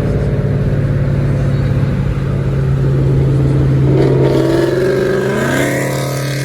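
Car on the road with a steady low engine drone. From about four seconds in, an engine revs up, its pitch rising for about two seconds.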